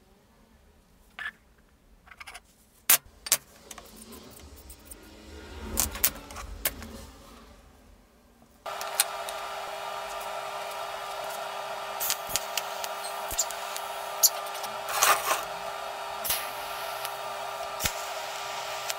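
Pieces of steel clinking and clattering against each other in sharp, scattered knocks. About eight and a half seconds in, a steady machine hum starts suddenly and keeps running, with further metal clinks over it.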